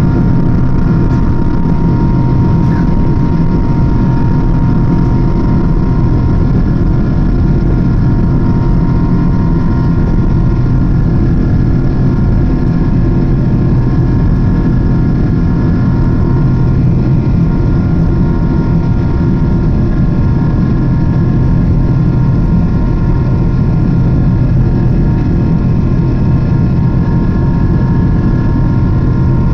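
Cabin noise inside a Japan Airlines Boeing 777-300 during the climb after takeoff: a steady low engine and airflow rumble with several steady whining tones from the jet engines.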